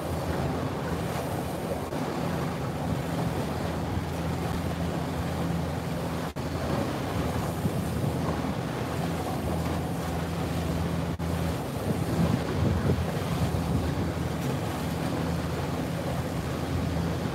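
The engine of a small Parker 21 pilothouse boat runs with a steady low hum, under wind on the microphone and water washing against the hull. About twelve seconds in the hum drops out briefly under a louder rush of wind and water.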